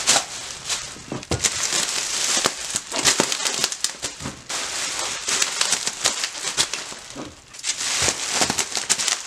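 Plastic bubble wrap crinkling and crackling loudly as it is wrapped and pressed by hand around a heavy differential, with many sharp snaps throughout. The noise eases briefly about seven seconds in, then resumes.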